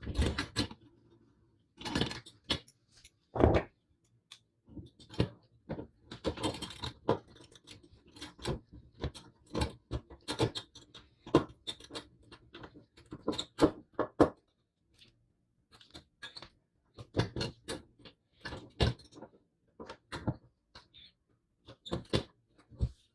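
Irregular clicks, taps and light knocks of the metal parts of a vintage mini balance scale being handled, fitted together and screwed down by hand.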